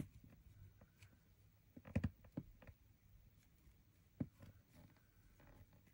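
Faint clicks and light taps of a needle and a folded paper threader being handled in the fingers while trying to pull silk ribbon through the needle's eye. A small cluster comes about two seconds in and a single tap just past four seconds.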